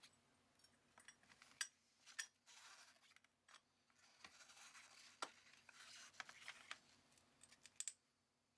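Faint hand-work noises: several sharp clicks and taps with stretches of soft scraping and rustling, as small parts are handled.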